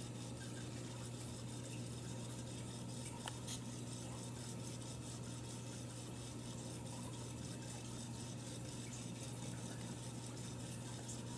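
Quarantine aquarium equipment running: a steady low hum with an even hiss of moving water and air from the tank's pumps and filters, and a faint click about three seconds in.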